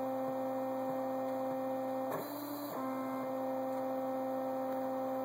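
Two unloaded stepper motors stepping through a lathe toolpath under Mach 3 control, giving a steady pitched hum. About two seconds in, the tone changes pitch for about half a second, then settles back.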